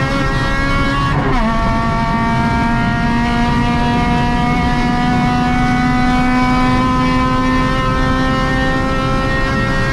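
Honda Civic VTi rally car's four-cylinder engine at full throttle, heard from inside the cabin. About a second in the revs drop sharply with an upshift. They then climb slowly and steadily as the car pulls through the gear, over constant road and wind noise.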